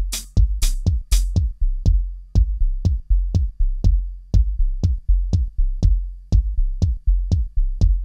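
Electronic dance music: a drum-machine kick drum on the beat, about two strokes a second, over a deep steady bass. A bright hissing hit on each beat drops out about a second in, leaving the bare kick and bass.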